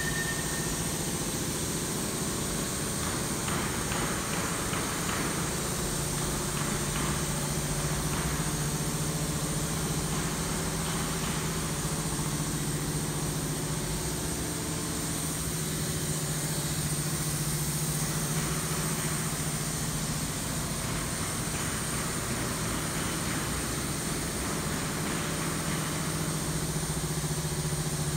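Two-cylinder Ricardo-type 2110 diesel engine running steadily at a constant speed.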